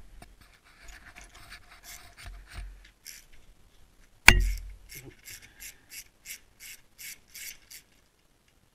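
Hand tools working on a motorcycle fairing bolt: scraping and rubbing, then a loud sharp knock about four seconds in. After it comes an even run of quick clicks, about three a second, from a ratchet wrench with an extension bar being turned on the bolt.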